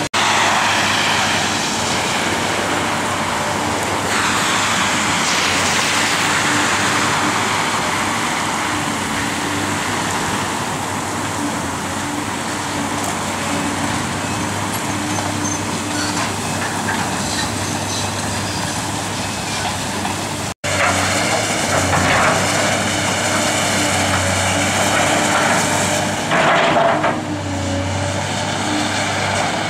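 Steady diesel engine of a demolition excavator running, mixed with a broad rush of passing road traffic that swells several times. The sound breaks off for a moment about two-thirds through.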